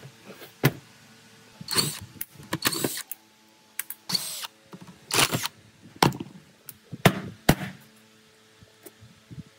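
Hand work on metal machine parts: irregular knocks and clanks, several short scraping noises, and a faint steady hum underneath.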